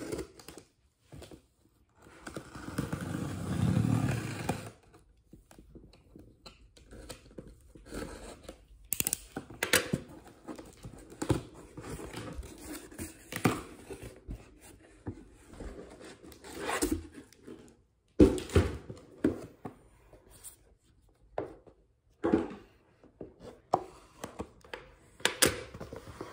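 A cardboard shipping box being opened and unpacked by hand. Its cardboard flaps and contents scrape, rustle and knock, with a longer rasping stretch about two seconds in, then a string of short scrapes, taps and thuds as the flaps are folded back and a boxed item is lifted out.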